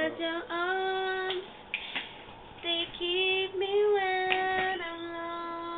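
A young woman singing without accompaniment in long held notes, the last one held steady from about five seconds in.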